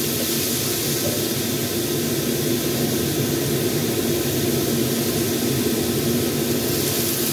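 Steady hiss of chayote and carrot stir-frying in a hot wok, with the hiss brightening near the end as a little water is poured in.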